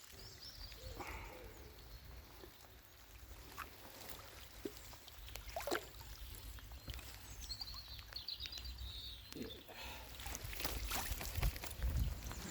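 Faint outdoor ambience: wind rumbling on the microphone, with scattered small clicks and knocks and a bird chirping briefly twice.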